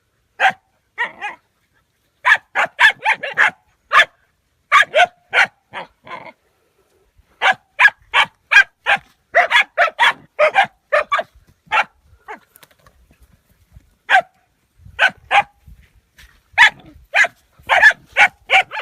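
A dog barking over and over in runs of quick, sharp barks, with short pauses between the runs.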